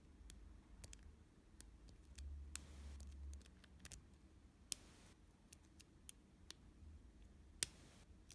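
Faint, irregular clicks of a lock pick working the pin tumblers of a stainless steel padlock, with one sharper click about seven and a half seconds in, as pins set under tension.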